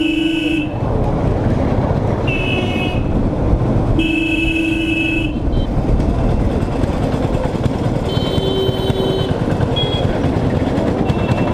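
Motorcycle engine running under heavy wind rumble on a helmet-mounted microphone while riding through traffic, with vehicle horns honking several times, the longest blasts lasting about a second.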